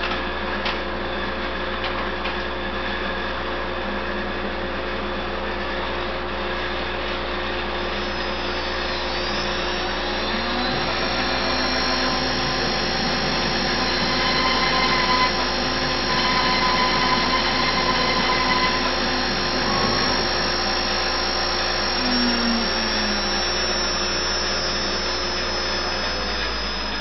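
CNC router table at work countersinking holes in a spoil board: its spindle and dust extraction run with a steady whine and hum, and the stepper motors give rising and falling whines as the gantry moves. The machine grows louder between about ten and twenty seconds in, while it cuts.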